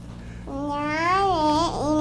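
A young girl's voice, drawn out in long, sliding sing-song phrases.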